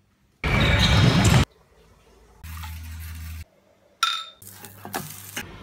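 Two glass bottles clinked together about four seconds in, with a sharp clink and a short high ring. Before it, abrupt one-second snippets of other sounds start and stop; the loudest is a second of loud noise about half a second in.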